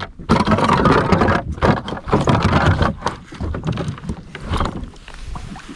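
Water sloshing and slapping around a pedal fishing kayak, with irregular knocks from handling on board. Busier in the first three seconds, then quieter.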